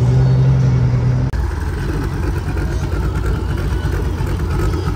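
Car engines and exhausts at low speed. A Mitsubishi Lancer Evolution X's exhaust drones steadily and breaks off suddenly about a second in. A modified Ford Mustang's engine then rumbles as it rolls by.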